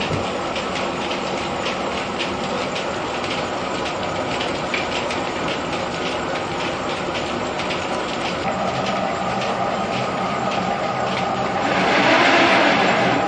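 Threshing machinery in a grain mill running steadily with a quick, uneven clatter. Near the end a louder rushing swell rises over it and eases off.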